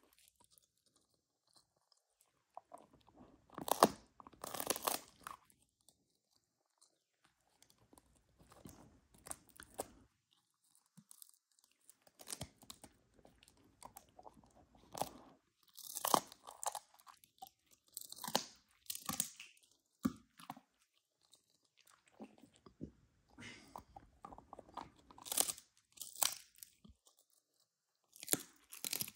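Husky crunching and chewing a dried cod skin treat: clusters of crisp crunches separated by quiet pauses of a second or two.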